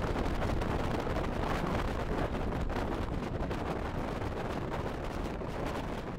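Wind rushing over the microphone and the rolling roar of wheels on coarse asphalt at downhill longboarding speed, slowly fading.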